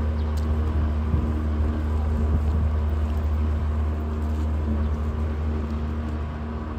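Motor of a small canal tour boat running steadily as the boat moves away, a low drone that fades slightly near the end.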